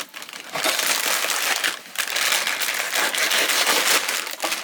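Plastic instant-noodle packets crinkling and crunching as they are handled and opened, a dense crackle with a short pause a little before halfway.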